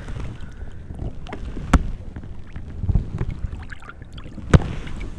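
Water splashing and sloshing beside a kayak as a big blue catfish is released and swims off at the surface, with two sharp knocks, one about two seconds in and one near the end.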